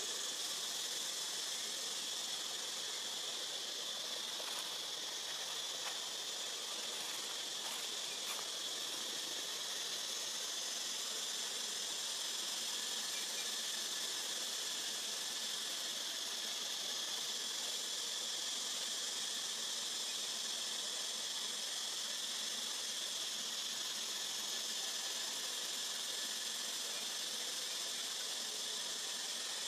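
Steady high-pitched drone of an insect chorus, a continuous hiss with no change over the whole stretch. A few faint clicks come in the first third.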